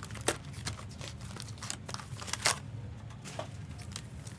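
Cardboard trading-card box and its packaging being opened by hand: scattered crinkles, rustles and sharp snaps, the loudest just after the start and about halfway through, over a steady low hum.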